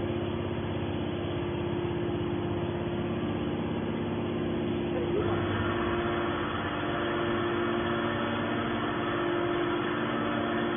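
Hydraulic scrap metal baler's power unit running: a steady motor-and-pump hum with a low drone. About five seconds in, the sound turns harsher and busier.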